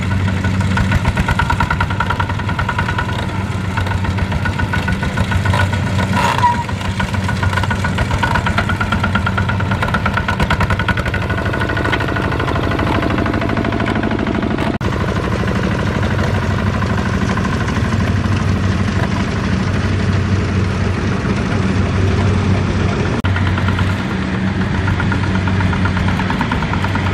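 Single-cylinder Kubota ZT140 diesel of a two-wheel walking tractor running steadily with a fast, even chugging beat while it hauls a trailer loaded with rice sacks. A brief knock sounds about six seconds in.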